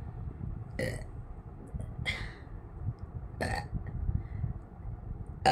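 A woman belching in short separate burps after gulping a lot of water, three about a second and a half apart and a louder one at the very end.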